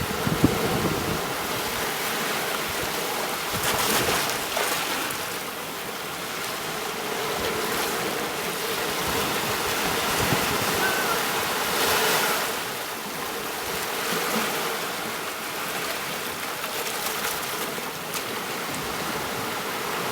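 Rushing water, a steady wash of noise that swells louder twice, about four and twelve seconds in.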